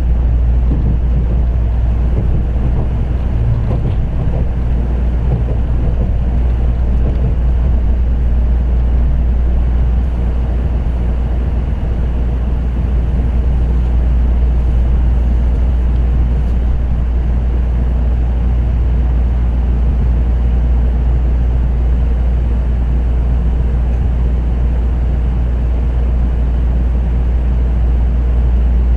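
Interior running noise of an N700A Shinkansen Green car in motion: a steady low hum and rumble with the rolling noise of the wheels, holding even throughout.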